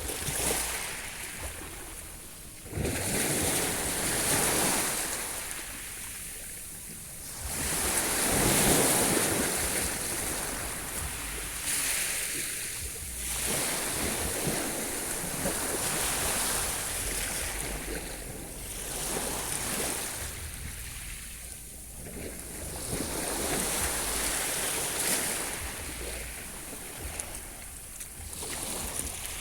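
Sea surf: waves breaking and washing in, the rush of water swelling and fading every few seconds.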